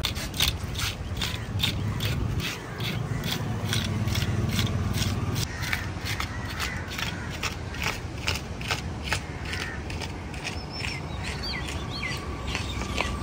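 Fish scales being scraped off a large spotted fish with a hand scaler: quick rasping strokes, about three a second, that stop a few seconds before the end.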